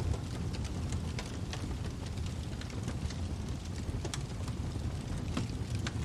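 Wood fire burning in a fireplace: irregular sharp crackles and snaps over a steady low rumble.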